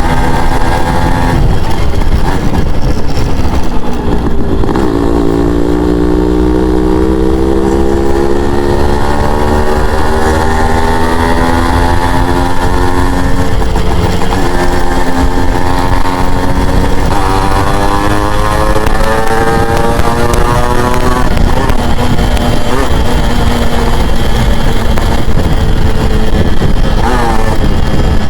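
Yamaha RX100's two-stroke single-cylinder engine pulling a moving motorcycle. Its pitch climbs steadily under acceleration, drops back, climbs again and falls away near the end, over a steady low rumble.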